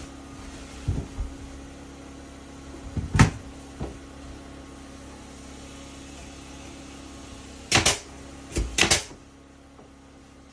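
A series of sharp knocks and thumps over a steady low hum: two light ones about a second in, the loudest about three seconds in, and a cluster of three or four near the end.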